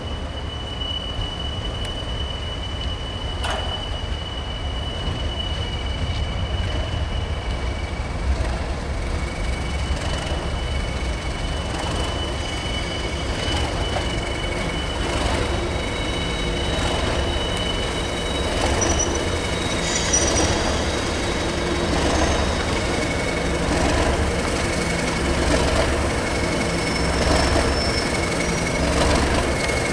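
Class 37 diesel locomotive's English Electric engine running, growing louder and throbbing in slow pulses over the second half, with a steady high-pitched wheel squeal on the curve.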